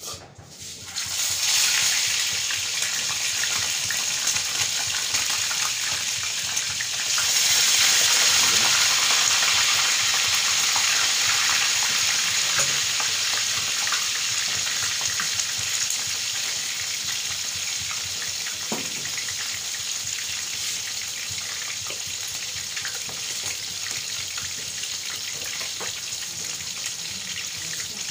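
Tail pieces of dalagang bukid (redbelly yellowtail fusilier) sizzling hard in hot cooking oil in a frying pan as they go in to fry. The sizzle starts within the first second, grows louder again about seven seconds in, then slowly eases off.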